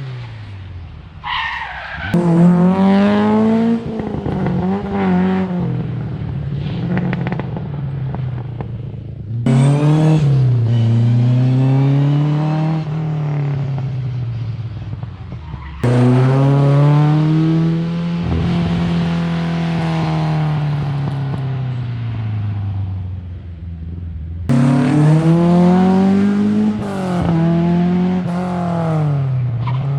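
Rally cars at competition speed passing one after another, engines revving hard and the pitch rising and falling through gear changes. Each pass starts abruptly, about four in all.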